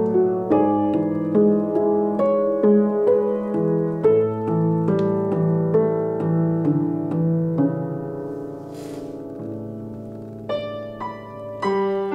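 Upright piano played solo, an improvised piece of single notes and chords. About eight seconds in it settles on a held chord that fades, and new notes come in near the end.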